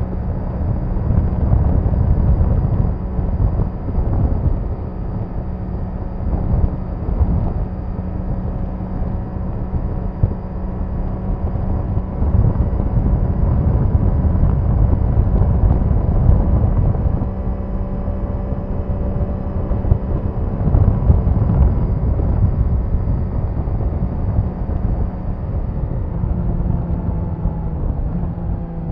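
Triumph Daytona 660's inline three-cylinder engine running at a fairly steady speed while riding, heard from onboard over heavy wind rumble on the microphone; the engine note dips slightly near the end.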